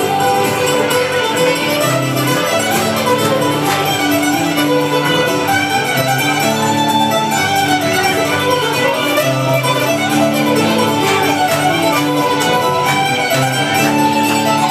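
Live fiddle-led traditional dance tune played by a pub band, with fiddles carrying a fast, busy melody over a guitar accompaniment holding a steady bass.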